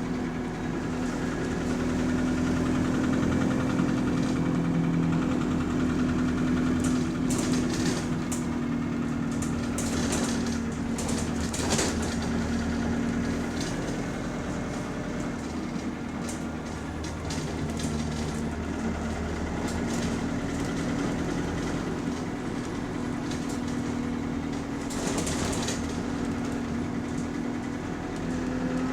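Bus engine running steadily with a constant hum while the bus is under way, heard from inside the bus. Scattered rattles and clicks come through around the middle and again near the end.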